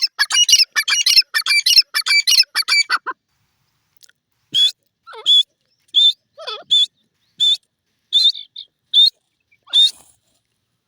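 Francolin (teetar) calling: a fast run of loud, harsh notes for about three seconds, then single short, sharp call notes repeated a little under a second apart.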